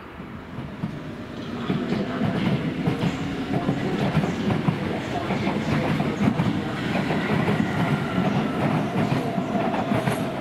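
Electric commuter train coming in and running past close by. A low rumble of wheels on rails builds, with many short clicks from the wheels crossing rail joints, and a thin motor whine about midway through.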